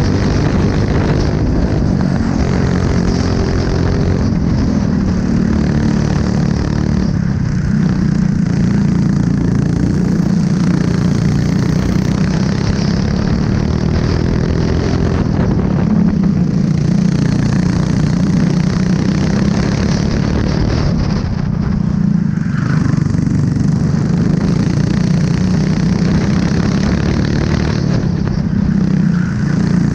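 Onboard sound of a racing kart's Honda engine running hard through a lap, its pitch rising and falling with throttle through the corners, over wind and road noise. About two-thirds of the way through, the engine eases briefly off the throttle, then picks up again.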